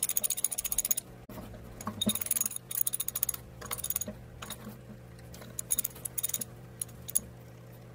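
Socket ratchet wrench clicking in several quick runs of rapid ticks as bolts are spun out of a steel engine-mount assembly.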